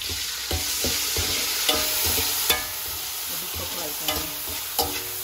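Frozen green peas sizzling hard in hot oil in a stainless steel wok, the water on the frozen peas making the oil spit, while a wire spider strainer stirs them and clinks against the metal several times, the loudest clink about two and a half seconds in.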